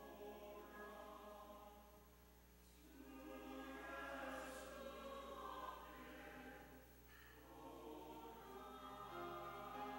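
Church choir singing a Korean hymn softly in sustained phrases, dipping quieter about two seconds in and then swelling again.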